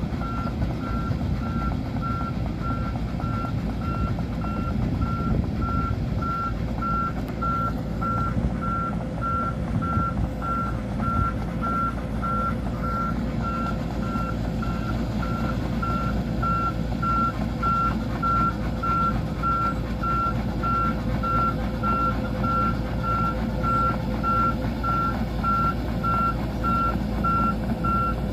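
Back-up alarm on an excavator beeping at a steady even rate, one tone, over the low rumble of its diesel engine.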